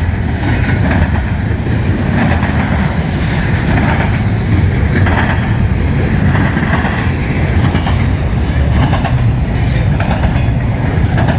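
CN freight cars rolling past, a loud steady rumble with the steel wheels clacking over rail joints at irregular intervals.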